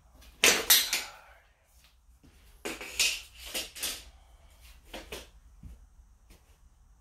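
A metal tape measure retracting with a rattle and snapping shut about half a second in. Then steel carabiners and anchor hardware clink in several quick strikes as they are handled on the plywood platform, followed by a few lighter knocks.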